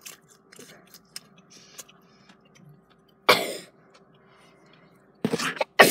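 A baby sneezing: one short, sharp burst about three seconds in, after a stretch of faint clicks, with more loud bursts near the end.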